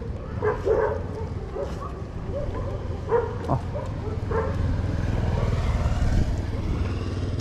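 Road traffic running past, with a vehicle passing close about five to six seconds in. Short yelping animal calls come several times in the first half.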